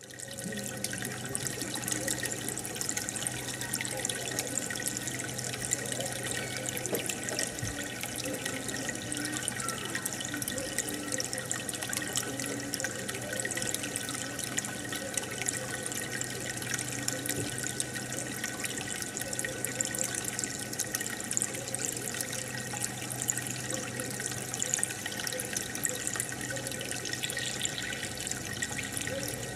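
Aquarium filter running: water bubbling and trickling with a constant patter of small drips and splashes, over a steady low hum.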